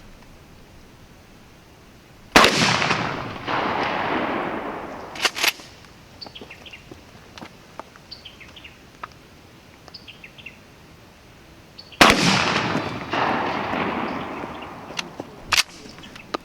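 Two 12-gauge shotgun blasts of double-aught buckshot, about ten seconds apart, each echoing away over about two seconds. A pair of sharp clacks follows each shot about three seconds later.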